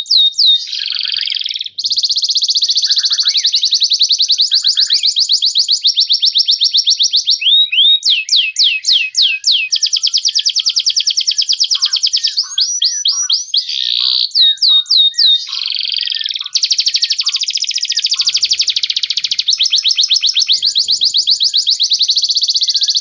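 Domestic canary singing: long rolling trills of rapid, high repeated notes, each held for several seconds, broken by a few short runs of sweeping whistled notes.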